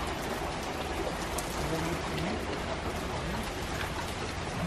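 Steady rain falling, an even hiss of drops on wet pavement and lawn.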